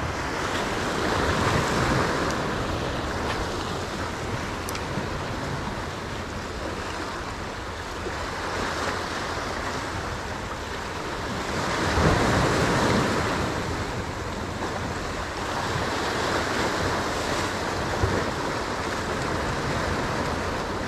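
Sea waves breaking and washing over the boulders of a rock jetty, a steady rushing that surges louder about two seconds in and again around twelve seconds.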